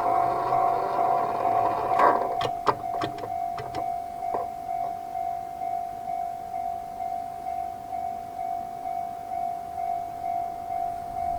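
A level-crossing electronic warning bell of the JR East type rings on, a steady tone pulsing a little faster than once a second. In the first few seconds the running noise of a 115-series electric train fades out with a run of sharp wheel clacks over the rail joints. After that the bell rings alone.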